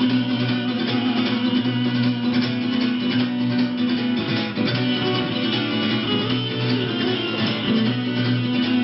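Live band playing an instrumental passage: strummed guitars over held low bass notes, with no singing.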